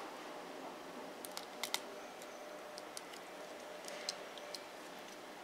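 Scattered light clicks of plastic model-kit parts being handled and pressed together as a Gundam kit's sword is folded between its gun and sword forms, over faint room hiss.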